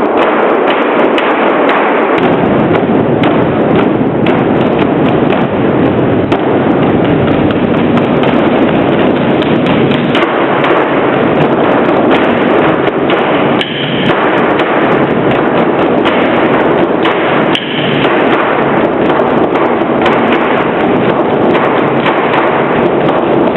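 Large drums beaten fast and continuously in a drumming performance, a loud dense stream of strokes with two brief dips in level.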